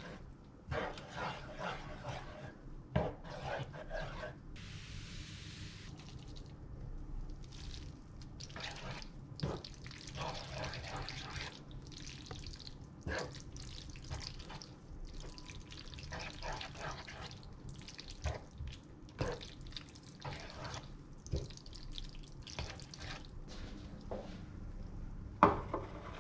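A spatula stirs thick, saucy macaroni in a metal frying pan, making wet squelching and repeated scraping against the pan. There is a brief hiss about five seconds in, and a ceramic bowl knocks down hard on the countertop near the end.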